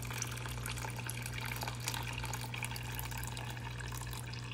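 Water pouring from a clear acrylic container through a fine mesh fish net into a plastic tub, a steady splashing trickle, over a steady low hum.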